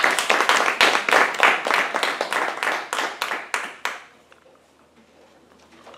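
A small group applauding, rapid overlapping hand claps that die away about four seconds in.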